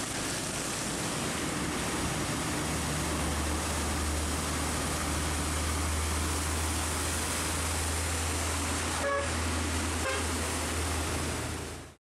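Heavy traffic on a rain-soaked, flooded road: the steady hiss of rain and tyre spray, with a low truck engine drone building a couple of seconds in. Two short vehicle horn toots sound about nine and ten seconds in, then the sound fades out.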